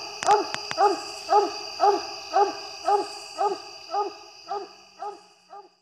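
Coonhound barking in a steady, evenly spaced series, about two barks a second, gradually fading out.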